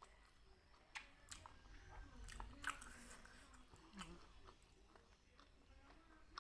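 A person chewing and biting food close to the microphone, with a few sharp wet clicks.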